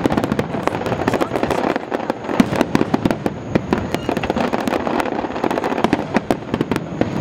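Aerial fireworks display: a dense, unbroken barrage of bursting shells and crackling, many sharp pops every second over a low rumble.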